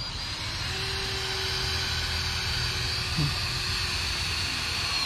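Cordless drill running steadily as it drives a screw into the wooden top beam of a post frame. A constant whine lasts about five seconds and cuts off suddenly.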